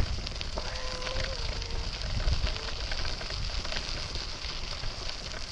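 Bicycle tyres rolling over a gravel path: a steady crackling crunch full of small clicks. A faint short tone sounds about half a second in.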